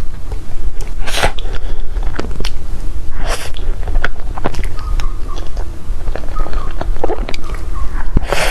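Close-up eating sounds of Korean cake: chewing with many small wet mouth clicks, and three louder bites about a second in, a little past three seconds, and near the end.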